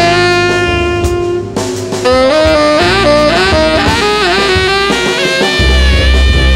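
Free-jazz trio improvising: a saxophone holds one long note, then breaks into a quick run of changing notes over bass guitar and light drums. The bass grows stronger near the end.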